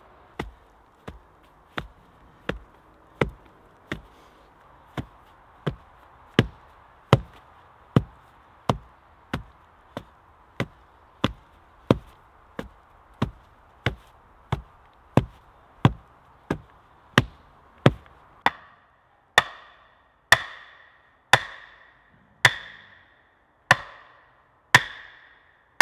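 A long bar tamping soil down around the foot of a log post, a dull thud about every 0.7 seconds. About 18 seconds in the blows turn louder and ringing, about one a second: an axe striking the log timber frame.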